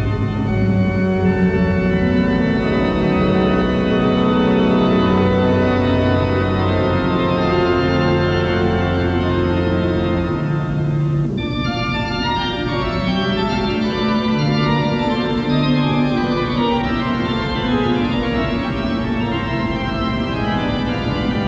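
Organ music of slow, held chords over long sustained bass notes, thinning out briefly about halfway before new chords come in.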